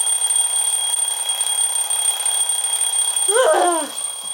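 Alarm clock going off with a steady high-pitched electronic tone. Near the end a brief cry falls in pitch over it.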